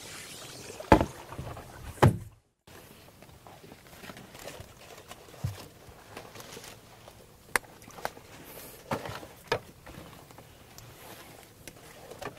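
Two loud knocks with water sloshing, from a small boat moving through a lotus pond, then after a short break scattered snaps and rustles as lotus seed pods are picked among the leaves.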